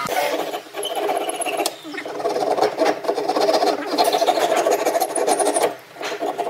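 A wide steel scraper blade on a long wooden handle scraping along the wooden strips of a boat-shaped hull. Long scraping strokes with short breaks about half a second in, near two seconds and near the end.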